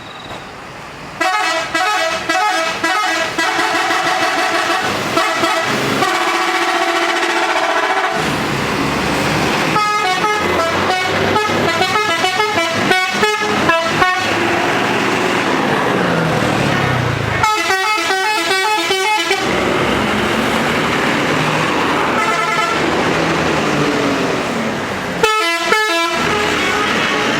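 Tour buses' "telolet" multi-tone horns playing loud, rapid warbling tunes, each burst quickly switching between several notes, one sequence after another from about a second in.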